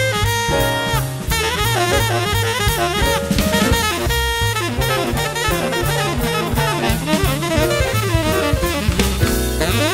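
Upbeat jazz music: saxophone melody over a drum kit with a steady beat.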